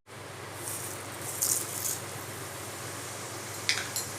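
Dried red chillies and nigella seeds sizzling in hot oil for tempering: a steady hiss with a few short, sharper crackling bursts.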